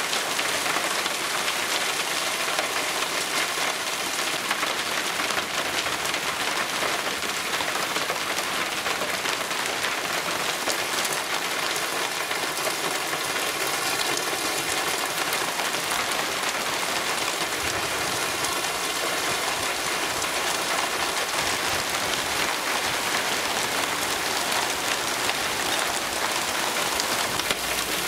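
Cloudburst: very heavy rain pouring down steadily, mixed with pea-sized hail, a dense even hiss with a fine crackle of drops and hailstones striking.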